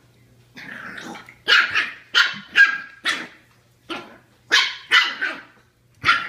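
Boston terrier puppy growling briefly, then giving about ten short, sharp barks in quick clusters at its own reflection in a mirror.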